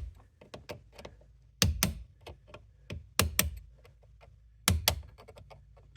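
A sharp chisel tapped against the head of a soft steering-column bolt to turn it loose: sharp metal taps, mostly in pairs about every second and a half, with fainter ticks between.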